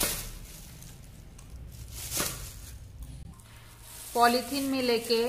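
Thin polythene bag rustling and crinkling as it is handled, with a sharp crackle at the start and another about two seconds in. A woman starts speaking near the end.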